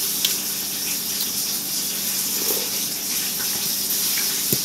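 Pork chops frying in a pan: a steady sizzling hiss with a few sharp crackles and pops.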